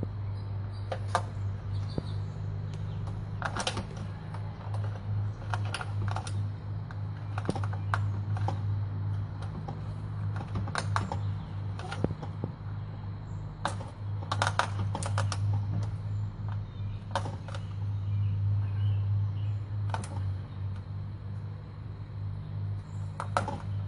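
A cat's claws hooking into and pulling on the mesh of a screen door as it climbs, giving irregular clicks and taps, some in quick clusters of several. A steady low hum runs underneath.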